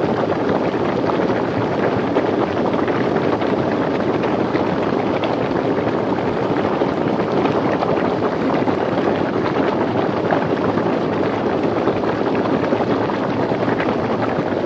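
Close-up of a small geyser in a volcanic thermal spring: water bubbling rapidly and steadily, with a dense crackle of bursting bubbles.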